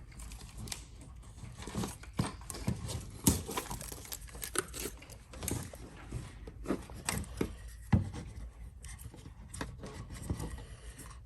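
Hands working a foam speaker gasket and speaker parts: irregular rustling, crinkling and light clicks and taps, with a couple of sharper knocks about three and eight seconds in.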